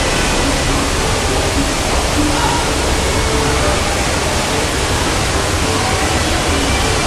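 Steady rushing noise of an indoor swimming pool hall, the constant sound of its water and air handling.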